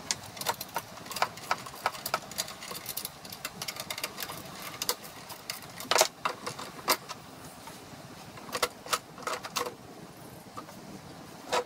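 Metal clicks and clanks as the steel handle and tow-bar bracket of a tow-behind broadcast spreader are handled and fitted together, in irregular clusters with a heavier knock about six seconds in.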